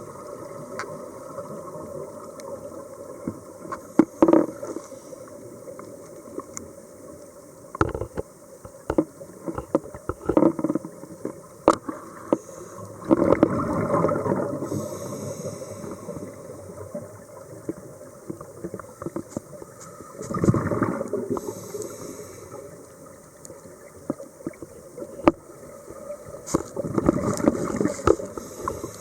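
Scuba regulator breathing heard underwater, muffled: exhaled bubbles gurgle up in surges every six or seven seconds over a steady underwater hiss, with scattered small clicks.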